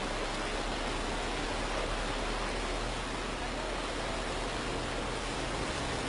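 Steady rushing and churning of floodwater as a tanker tractor-trailer plows through it, pushing up a bow wave.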